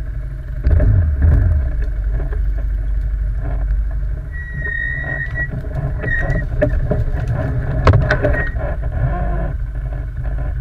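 Quad bike (ATV) engine running under load, getting louder about a second in, with a brief high squeal about four seconds in and sharp knocks near eight seconds.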